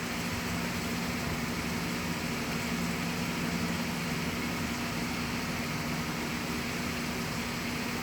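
A 2004 GMC's engine idling: a steady, even hum with no change in speed.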